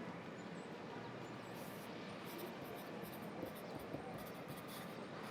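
Pencil scratching on paper in a run of short, irregular strokes, over a steady background haze of city ambience.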